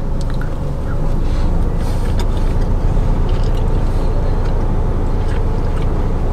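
Steady low rumble of a car idling, heard from inside the cabin, with a few faint clicks of chewing.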